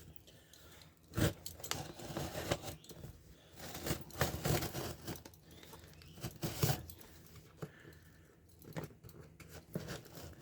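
A cardboard shipping box being opened by hand: packing tape tearing and cardboard scraping and crinkling, with a few sharp knocks in between.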